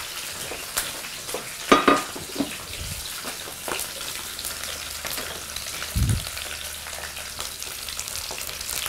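Raw chicken leg quarters browning in hot melted smen (clarified butter) and oil in a pan: a steady sizzle with fine crackling. A couple of sharp knocks come near two seconds in, and a low thump about six seconds in.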